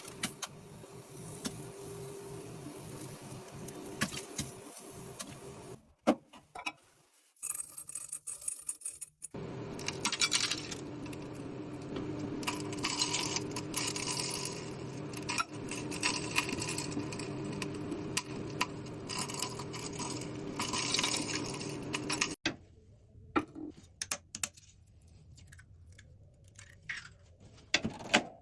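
Microwave oven running with a steady hum, with many small metallic clicks and rattles over it. The hum stops twice, briefly about six seconds in and again for the last six seconds.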